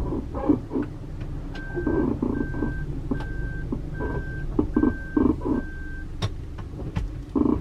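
Under-floor creaking and groaning from the camper van's helper leaf spring (増しリーフ) as it drives, in irregular squeal-like bursts that sound like an animal calling, over the low rumble of the vehicle heard from inside the cabin. The noise is the sign of a faulty helper leaf, later swapped for a countermeasure part. A short beep repeats six times at an even pace through the middle.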